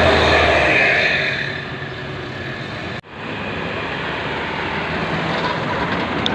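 A bus passing close by, its engine and road noise loud at first and fading over the first two seconds. After an abrupt cut about three seconds in, steady road traffic noise follows. No telolet horn melody is heard.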